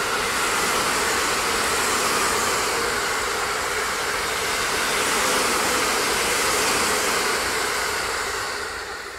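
Train passing close by at speed: a steady rush of wheel and rail noise that swells and then fades away near the end.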